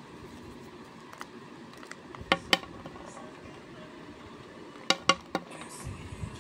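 Hard round anardana goli digestive tablets tipped from a jar, clicking as they drop onto a plate. Two sharp clicks come about two and a half seconds in and three more about five seconds in, each with a brief ring.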